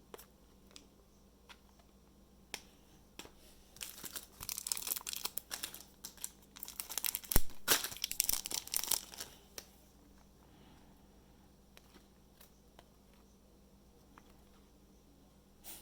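Plastic trading card pack wrapper crinkling and tearing as a pack is opened by hand, with scattered light clicks. The crinkling is densest and loudest in the middle stretch and dies back to a few small clicks afterwards.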